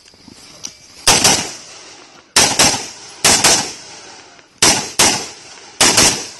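AR-15-style semi-automatic rifle fired in quick pairs: ten shots in five double taps, each shot trailing off in echo.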